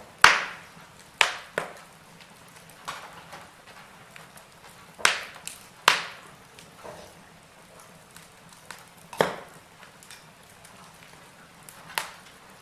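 Campfire wood crackling: irregular sharp pops every second or two over a faint steady hiss, the loudest just after the start.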